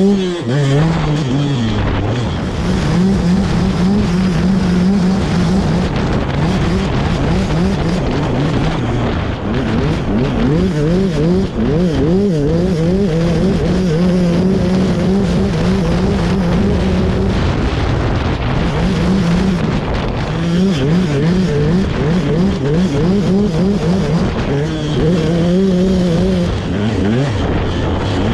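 KTM 200 SX single-cylinder two-stroke motocross engine ridden hard. The revs are held high for stretches, then rise and fall rapidly several times a second as the bike works through whoops.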